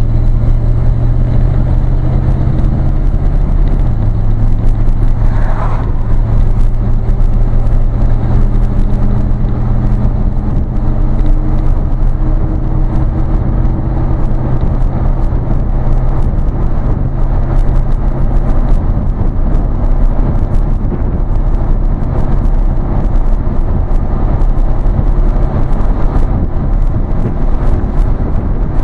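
Vehicle engine and exhaust droning steadily at highway cruising speed, with tyre and road noise, heard from inside the cab. The engine's low tone shifts slightly about four seconds in.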